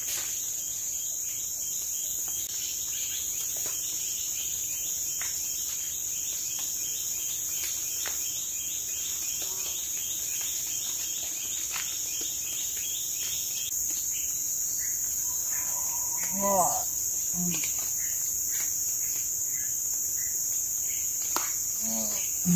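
Steady high-pitched insect chorus in wet tropical forest, with a rapid ticking insect call through the first half and a few short bird calls near the end.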